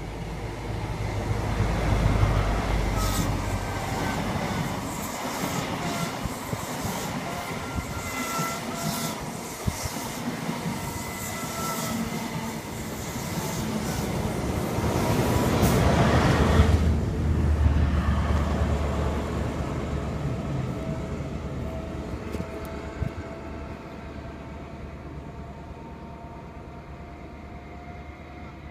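First Great Western HST (InterCity 125) passing at speed. The leading Class 43 power car's diesel engine goes by about two seconds in, then the coaches' wheels clatter over the rails. The trailing power car's engine passes after about a quarter of a minute, the loudest point. The train then fades into the distance, leaving a thin whine.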